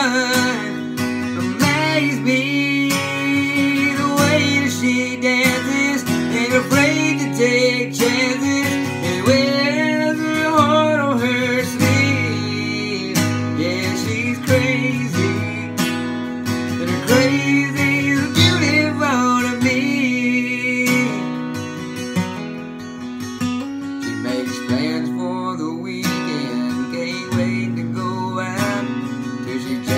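Acoustic guitar strummed in a steady rhythm, with a young man singing along over it. The playing softens for a few seconds about two-thirds of the way through.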